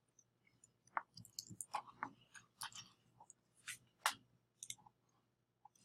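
Faint, irregular clicks of a computer keyboard as a file name is typed, with mouse clicks.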